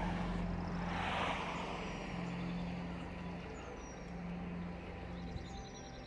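A road vehicle passing: its noise swells about a second in and fades over a steady low hum.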